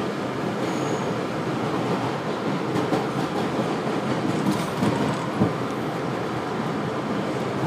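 R62A subway car running at speed on elevated track, heard from inside the car: a steady rumble of wheels and running gear, with a few sharp clicks as the wheels cross the rails.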